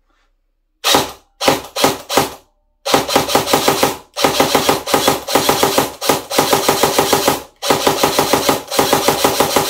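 Dboys M4 airsoft electric gun with ETU electronic trigger dry-fired without BBs, its gearbox cycling: a few short single shots, then long bursts of rapid, even clatter with brief breaks between them. The ETU runs cleanly, with the odd dropout that the shooter puts down to his trigger finger.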